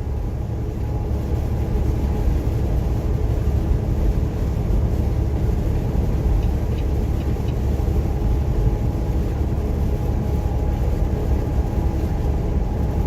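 Semi truck's Detroit diesel engine running at a steady cruise, heard from inside the cab, a constant drone with steady engine tones over a deep rumble, along with tyre noise on a wet, rain-soaked road.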